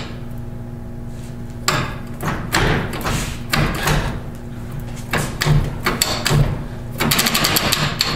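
Spartan locker in a Ford 8.8 rear differential ratcheting as one rear wheel is turned by hand while the other is held. First come irregular clicks and clunks from the drivers and gears; then, about a second before the end, a fast, even clicking sets in.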